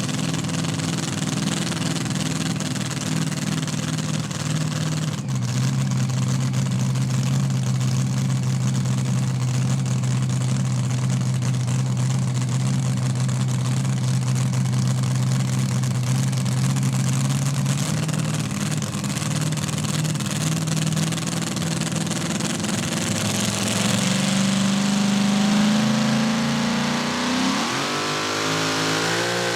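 A competition pulling tractor's engine running hard at high revs, loud and steady, with its pitch stepping down and up a few times. Near the end the engine revs up in rising sweeps.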